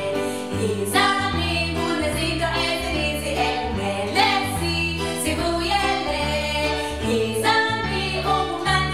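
Women singing a children's song in isiXhosa over an instrumental backing track with a bass line that changes note about once a second.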